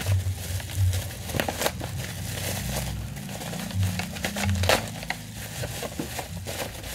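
Plastic bubble wrap crinkling and crackling in irregular bursts as it is handled and pulled open by hand, with background music underneath.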